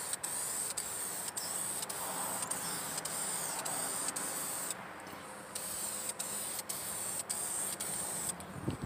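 Duplicolor Metalcast aerosol spray can hissing as red candy paint is sprayed in passes over a panel, with a short break about five seconds in and another near the end.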